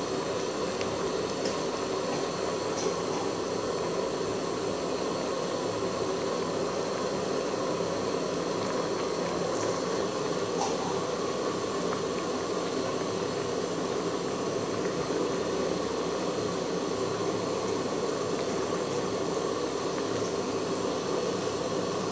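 Papaya and fish soup at a rolling boil in an aluminium pot: a steady bubbling hiss with a few faint ticks.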